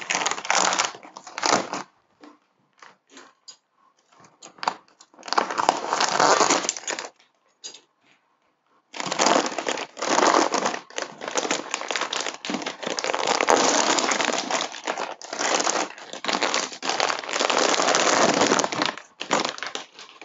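Clear plastic vacuum-seal bag crinkling as hands open it and work a velvet bathrobe out. The crinkling comes in bursts with short pauses, then runs on without a break from about nine seconds in until just before the end.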